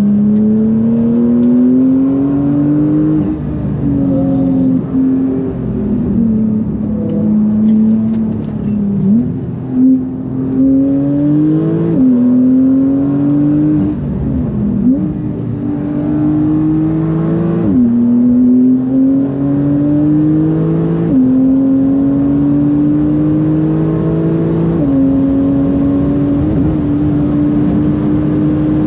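Porsche 991.2 GTS's twin-turbocharged 3.0-litre flat-six, fitted with bigger turbos, pulling hard under load. The revs climb and drop back sharply at each upshift, every few seconds, then hold fairly steady near the end.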